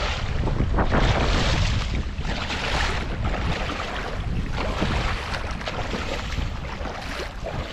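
Shallow river water splashing and sloshing around a person's legs as they wade in rubber waders, with wind rumbling on the microphone.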